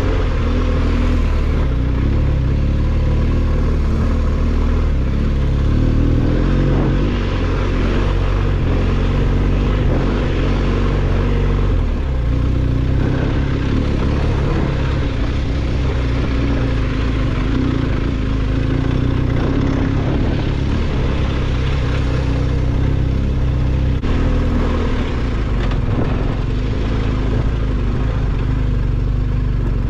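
BMW R1250GS boxer-twin engine running while the motorcycle is under way, over a steady rush of noise; the engine note changes pitch twice.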